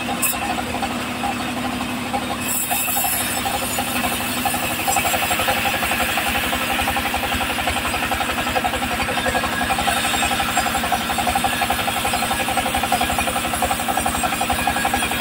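A homemade engine-driven bandsaw running while it rips a teak log: the engine drums with a fast, even pulse under the hiss of the blade cutting wood. The sound grows louder about four to five seconds in.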